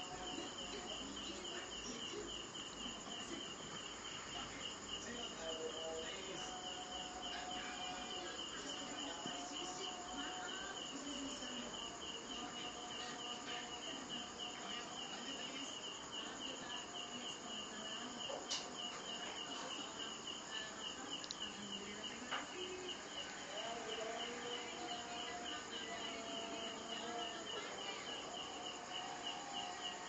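Insect chirping, cricket-like: a steady high trill in a fast, even pulse that never stops.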